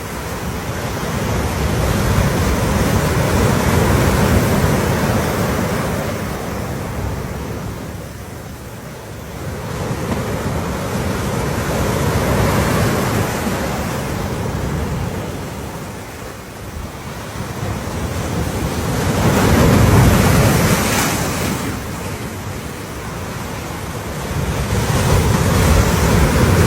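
Sea waves washing onto a beach, the surf rising and falling in slow surges about every seven or eight seconds, the loudest wave breaking about twenty seconds in.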